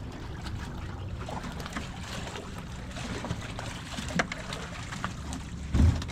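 Water sloshing and dribbling as a muddy metal machine part pulled up by a magnet is rinsed, with small clicks of metal being handled and a steady low rumble of wind on the microphone. A loud low thump comes near the end.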